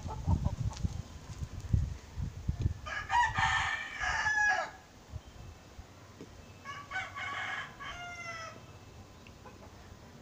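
A rooster crowing twice, each crow just under two seconds long, the first about three seconds in and the second about seven seconds in. Low thuds come before the first crow.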